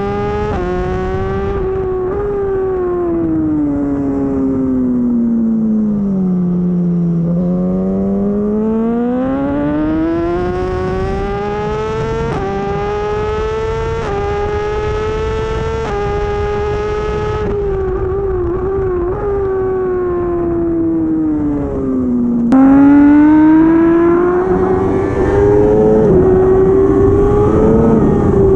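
Race motorcycle engine at high revs on track. The engine note falls steadily for several seconds, then climbs again with small steps in pitch. About 22 seconds in it turns suddenly louder and higher.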